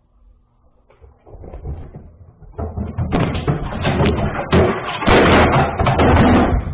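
A rapid, loud clatter of knocks, bangs and thumps that builds over the first few seconds and keeps up densely to the end.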